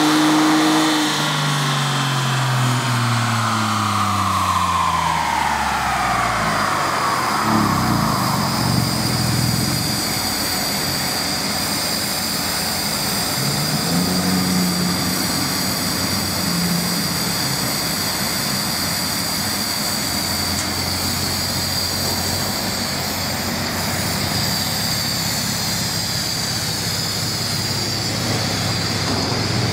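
2014 Ford F-150's twin-turbo 3.5-litre EcoBoost V6 at the end of a fourth-gear pull on a chassis dyno: held at high revs for a moment, then the pitch falls steadily over about six seconds as the engine and dyno rollers wind down. A steady rushing hum with a faint high whine carries on after that.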